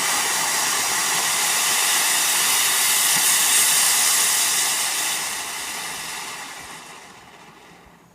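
Firework fountain spraying sparks with a steady loud hiss that swells to its loudest about halfway, then dies away as it burns out.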